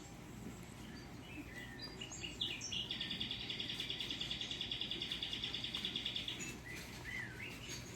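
Bird chirps and a rapid, evenly pulsed high trill lasting about four seconds, with scattered short chirps before and after it.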